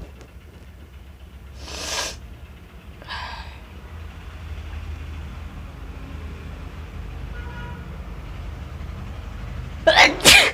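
A woman sneezing twice in quick succession near the end, set off by sniffing chilli powder. A sharp noisy breath comes about two seconds in, and a steady low hum runs underneath.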